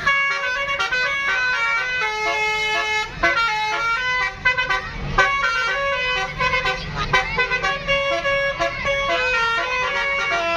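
Tour buses' telolet horns, banks of multi-tone air horns, playing quick note-by-note melodies with several tones sounding together and brief gaps.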